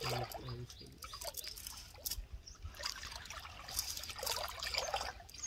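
Water trickling and dripping with small irregular splashes as a wet cast net is handled in shallow water, with a cluster of sharper splashes about four seconds in.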